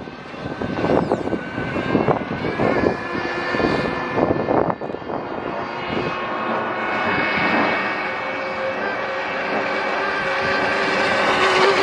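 Internal-combustion engine of a fast radio-controlled model speedboat running flat out, a steady high-pitched whine that shifts slightly in pitch and grows louder over the last few seconds as the boat comes closer. Several brief louder bursts of noise break in during the first five seconds.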